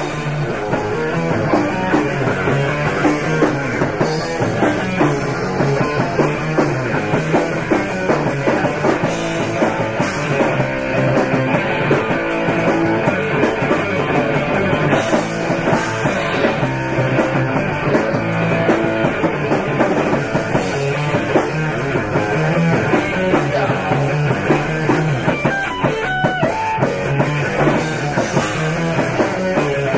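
Rock band playing a punk-leaning rock song, with drum kit, guitar and bass.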